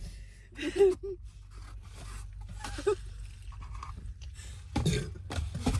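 A person trying to burp, making a few short throaty, breathy sounds while the burp stays stuck and does not come up. A steady low hum runs underneath.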